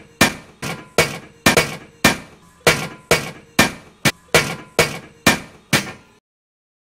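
A run of about a dozen sharp hits, roughly two a second with a couple coming closer together, each dying away quickly; the run cuts off abruptly near the end.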